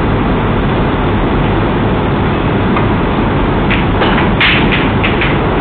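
Steady, loud background hiss and hum, with a quick run of sharp clicks and knocks in the last two seconds as a snooker shot is played: cue tip on the cue ball and the balls striking one another.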